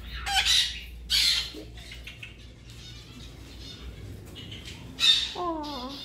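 Green-cheeked conures squawking harshly in their cage: loud squawks about half a second in, about a second in and again about five seconds in, with softer chatter between.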